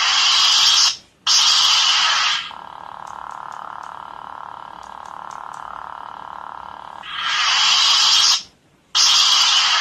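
Lightsaber sound-effects board playing a blade retracting and igniting twice: a loud hissing burst that cuts off to a brief silence, a second burst as the blade comes back on, then a steady hum. The cycle repeats about seven seconds in.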